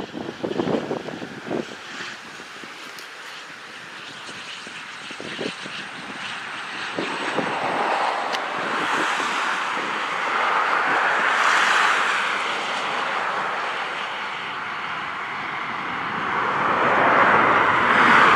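Small twin-engine business jet landing: its turbofan engines make a steady whine that swells as it passes and touches down, then grows loudest again near the end during the rollout. A few low gusts of wind buffet the microphone in the first couple of seconds.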